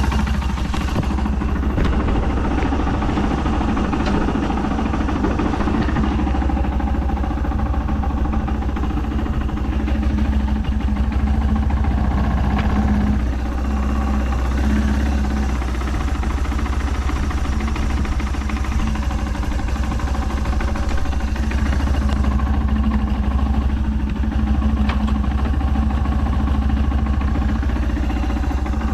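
Yamaha Serow 225's air-cooled single-cylinder four-stroke idling steadily through a Delta Barrel 4 up-swept aftermarket muffler. It runs evenly with no abnormal noises.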